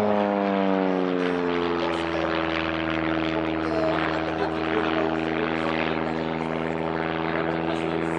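Single-engine aerobatic propeller plane climbing away overhead, its engine and propeller drone falling in pitch over the first couple of seconds, then holding steady.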